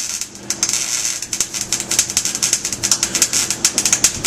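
Electric arc welding on steel: a steady, dense crackle and sizzle of the arc, full of irregular sharp pops, with a faint low hum underneath.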